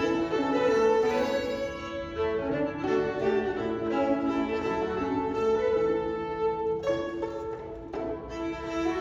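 Two fiddles and a banjo playing an old-time fiddle tune together, the fiddles bowing a sustained melody; the playing thins briefly about seven seconds in.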